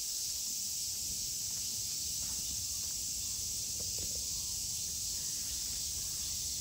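Steady, high-pitched drone of a summer cicada chorus from the park trees, with a low rumble beneath.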